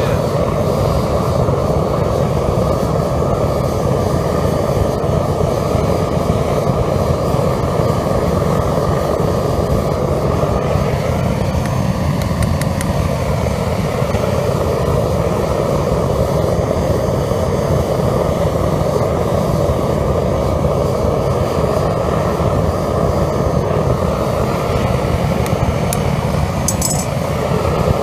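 Propane burner and air blower of a homemade foundry furnace running steadily, a dense even rush of flame and air with most of its weight low and middle in pitch. A few faint clicks near the end.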